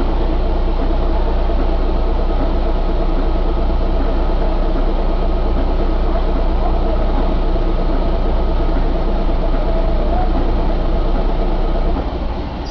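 Isuzu 6HK1 inline six-cylinder turbo diesel running steadily. Its level drops somewhat near the end.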